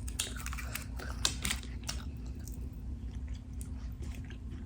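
Close-miked chewing of a mouthful of McDonald's fast food, with scattered small wet clicks and crackles from the mouth.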